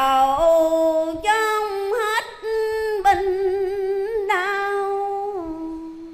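A woman chanting Vietnamese Buddhist verse in a drawn-out sung style into a handheld microphone, holding long notes of about a second each, some with a wavering vibrato, and stepping down to a final note that trails off at the end.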